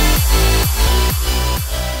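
Electronic dance music with a steady kick drum about twice a second under sustained synth chords, starting to fade near the end.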